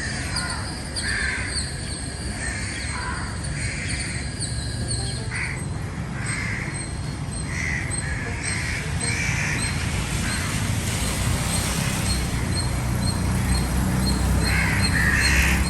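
Birds calling: a harsh call repeated roughly once a second, with quicker short high chirps over it and a steady low background rumble.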